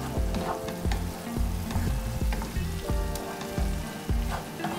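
A wooden spatula stirring a tomato and onion sauce in a frying pan, with a stroke every half second or so, over the steady sizzle of the sauce cooking down.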